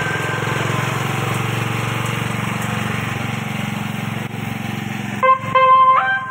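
A motor vehicle engine running steadily with a fast, even pulse. About five seconds in, a bright electronic tune in stepped notes starts playing over it.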